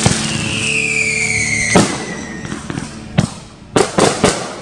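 Aerial firework shells bursting overhead: a sharp bang at the start and another near two seconds, then a quick run of four reports in the last second and a half. A falling whistle sounds through the first two seconds.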